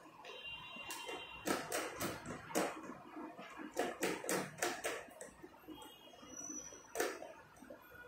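Small metal screws and the lock's metal mounting plate clicking and tapping as the screws are fitted by hand into the plate's holes. There is a quick cluster of clicks in the first half and one more sharp knock near the end.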